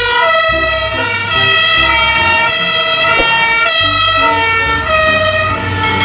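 Fire engine's two-tone siren sounding continuously, stepping back and forth between two pitches.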